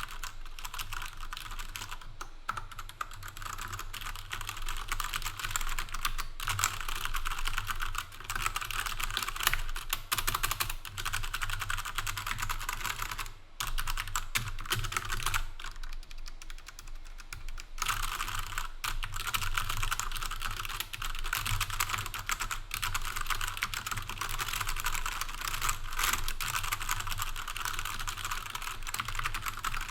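Fast, continuous typing on an Ajazz AK33 mechanical keyboard: a dense run of clicky keystrokes, with a couple of brief lulls near the middle.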